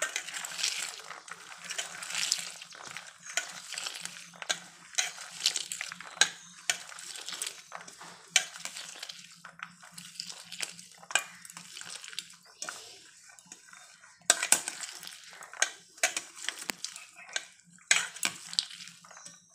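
A hand squeezing and mashing pomegranate seeds in a steel plate to press out their juice: irregular wet squishing and crackling, with fingers rubbing and knocking on the metal plate.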